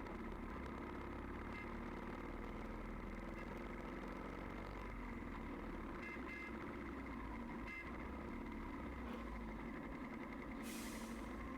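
Royal Enfield Bullet's single-cylinder engine running steadily while riding, with a brief hiss near the end.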